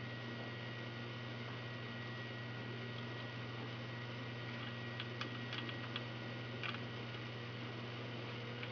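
Steady electrical hum with a faint high whine over it, and a few light clicks a little past halfway as a screwdriver turns a trimmer potentiometer on the board.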